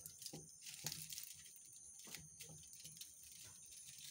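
Faint crinkling and crackling of aluminium foil as it is pressed and crimped tight over a hookah bowl, in scattered small clicks.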